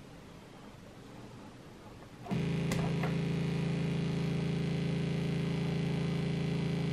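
A 40106 hex Schmitt-trigger inverter oscillator on a breadboard cutting in about two seconds in with a steady, low, buzzy square-wave tone, with a couple of clicks just after it starts. Before that, only faint background hiss.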